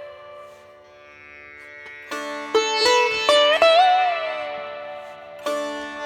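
Background music on a plucked string instrument, its notes sliding and bending in pitch over steady ringing drone tones. After a soft lull, a new phrase of plucked notes begins about two seconds in.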